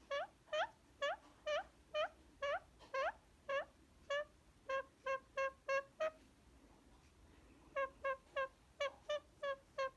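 Indian ringneck parakeet giving a run of short pitched calls. For the first few seconds they come about two a second and slide upward; then shorter, level notes follow faster, break off for about a second and a half, and start again.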